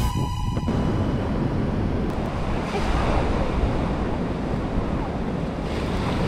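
Wind buffeting the microphone over the wash of breaking sea surf. A piece of background music cuts off within the first second.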